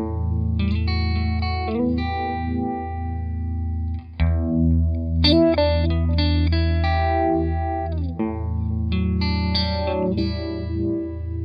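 Overdriven electric guitar played through the RFO Electronics Waterfall, a four-phase uni-vibe chorus/vibrato pedal, strumming chords and picking single notes over a sustained low note.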